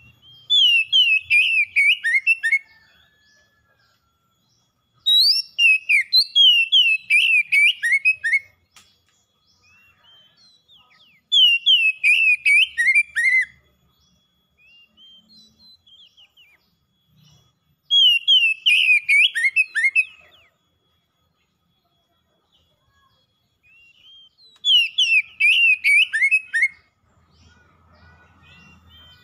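Oriental magpie-robin singing: five bursts of rapid, falling whistled notes, each two to three seconds long, separated by pauses of a few seconds with faint softer notes in between.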